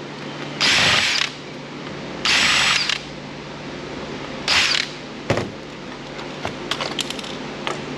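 Cordless power screwdriver backing out screws from the Roomba's housing in three short bursts, each under a second, followed by light clicks and ticks of small parts being handled.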